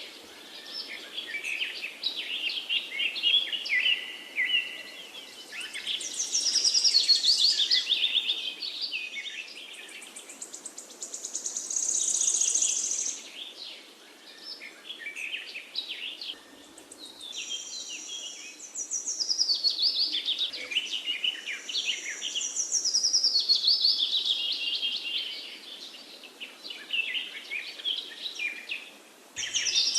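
Several songbirds chirping and singing at once: overlapping chirps and rapid trills that swell and fade in waves, over a faint steady background hiss.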